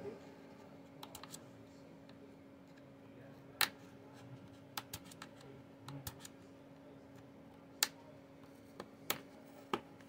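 Sharp plastic clicks at irregular intervals as the Dell Vostro 7590 laptop's bottom case is pried away from the palm rest and its clips come loose, the loudest about three and a half seconds in. A faint steady hum lies underneath.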